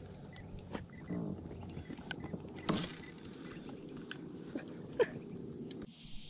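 A steady high-pitched insect chorus, with a few sharp clicks and light knocks from handling a spinning reel and tackle in a small boat. The insect sound cuts off suddenly near the end.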